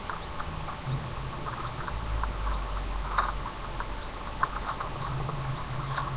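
Small pet rat moving about: irregular light scratching and clicking sounds, with a low hum underneath.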